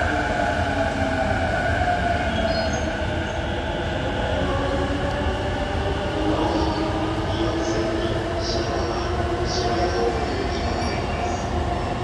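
Electric commuter train moving at the platform, with the motor whine slowly shifting in pitch over a steady rumble. Short high squeals come in from about halfway through.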